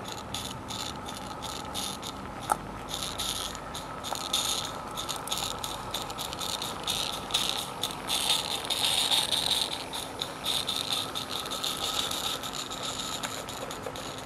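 Garden-scale live-steam Roundhouse Fowler locomotive and its freight wagons running past close by: rapid, uneven clicking and rattling of wheels and wagons on the track, with a hiss of steam that is loudest about eight seconds in as the engine passes. The engine has no chuffer fitted, so its exhaust does not make the usual chuff.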